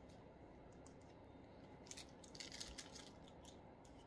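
Faint light clicks and scrapes of a plastic measuring spoon scooping ground spice from a glass jar, mostly about two to three seconds in.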